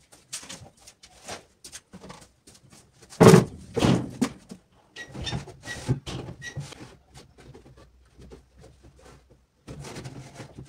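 Knocks and rubbing as a laminated wood cabinet is handled and wiped down with a cloth, with two loud thunks a little past three and four seconds in.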